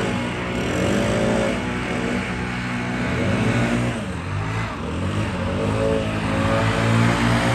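Backpack leaf blowers running, their engine pitch swaying up and down as the throttles are worked, over a steady low engine hum.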